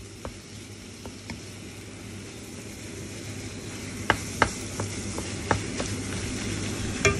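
Minced meat and diced onion sizzling in a nonstick wok while a wooden spatula stirs them; the sizzle grows steadily louder, with a few sharp knocks of the spatula against the pan from about four seconds in.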